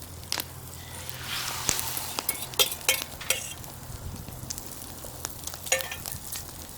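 Beaten eggs sizzling in a hot pan, with a utensil clicking and scraping against the pan a few times as they are stirred.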